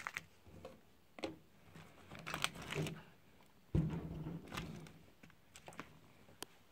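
Handling of parts in clear plastic bags: scattered crinkles and light clicks, with a dull knock about four seconds in.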